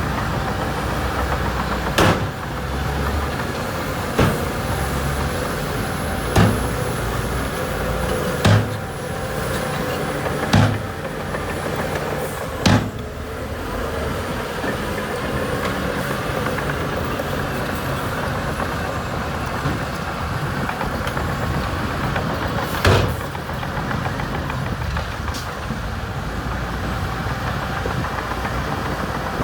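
Diesel engine of heavy earthmoving machinery running steadily, with sharp metallic bangs about every two seconds through the first half and once more near the end.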